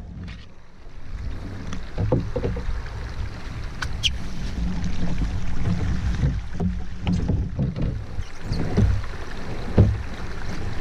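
A person clambering out of a canoe onto a beaver dam: irregular knocks, bumps and scrapes of boots and gear against the canoe hull and the dam's sticks, with one louder thump near the end, over a steady low rumble.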